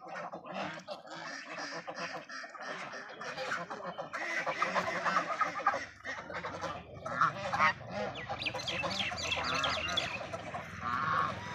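A flock of domestic geese honking and calling over one another, many overlapping calls without a break.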